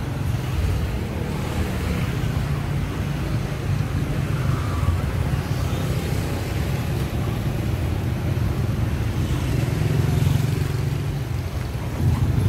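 Outdoor street-market noise with a steady low rumble of motorbike traffic.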